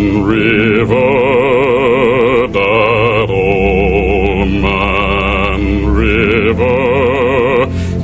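Operatic, chant-like singing with heavy vibrato: long held notes in a string of phrases, over a low steady bass drone.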